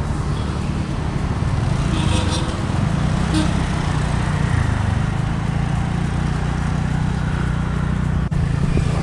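TVS Ntorq 125 scooter's single-cylinder engine running steadily at riding speed, with road and traffic noise.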